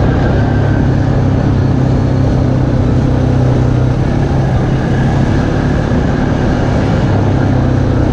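ATV engine running at a steady cruising speed along a dirt trail, a constant low drone with wind and tyre noise over it.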